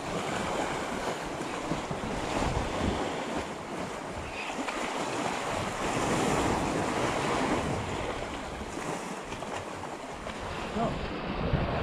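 Sea waves washing against the rocks, swelling and easing, with wind buffeting the microphone.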